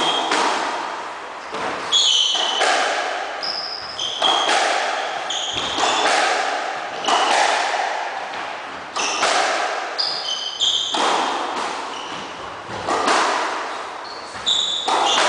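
Squash ball being struck by rackets and smacking off the court walls, a sharp hit every second or two, each ringing in the court. Short high squeaks of sneakers on the wooden floor come between the hits.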